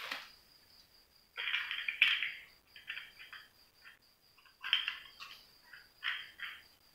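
Kittens scampering and tussling on a play mat: several short clusters of scratchy scuffling and light clattering from paws and claws, with quiet gaps between.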